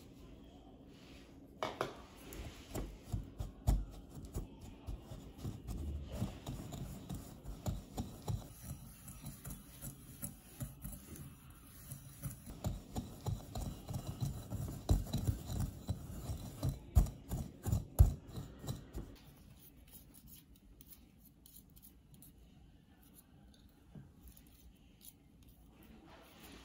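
Wire whisk scraping and knocking against a glass mixing bowl in quick, irregular strokes as butter is creamed with sugar; the strokes stop about three-quarters of the way through.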